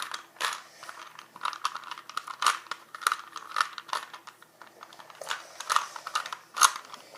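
A 3x3x3 Rubik's Cube being turned by hand, its plastic layers clacking in quick, irregular runs of clicks as a move sequence is repeated over and over.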